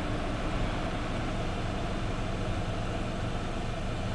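Heavy engine running steadily, a low even hum that does not change.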